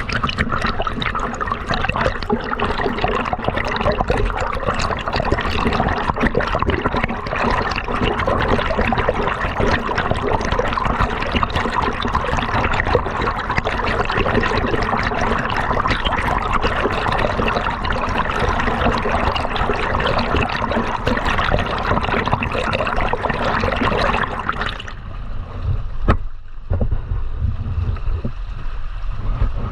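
River water trickling and gurgling in a dense, steady rush; about 25 seconds in it cuts off suddenly, leaving a low rumble.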